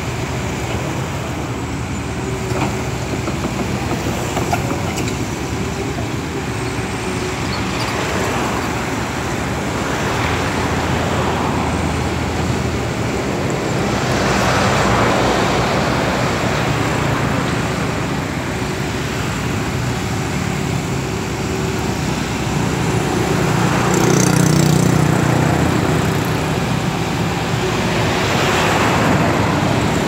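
Caterpillar 320D excavator's six-cylinder diesel engine running steadily while it digs and loads, with road traffic swelling past several times.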